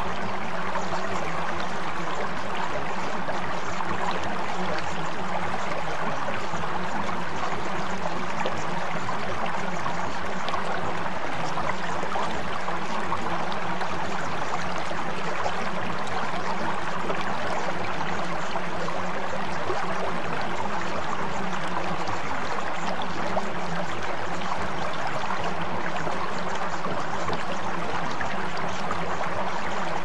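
Steady rushing of flowing water, even and unbroken, with faint low steady tones underneath.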